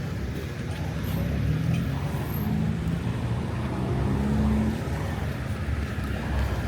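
Road traffic: motor vehicle engines running and passing, a steady low rumble with engine tones that rise and fall.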